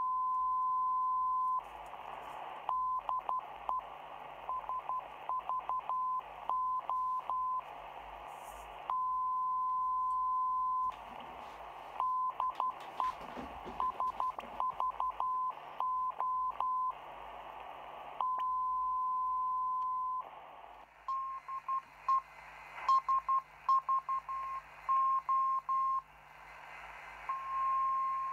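Morse code from the Greek coastal radio station SVO, sending "DE SVO" on 8423 kHz, received in single sideband on a portable shortwave receiver's speaker. It is a beeping tone of about 1 kHz: a long steady tone, then groups of dots and dashes, repeating, with shortwave hiss in between.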